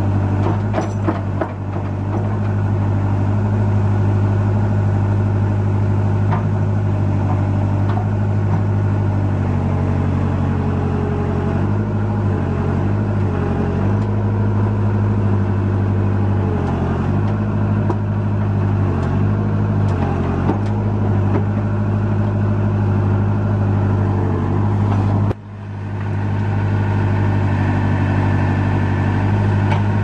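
1998 JCB 214E Series 3 backhoe's diesel engine running steadily while the backhoe boom and bucket are worked. Its note dips and recovers several times between about 12 and 21 seconds in as the hydraulics load it. A few short clanks come near the start, and about 25 seconds in the sound drops suddenly and swells back.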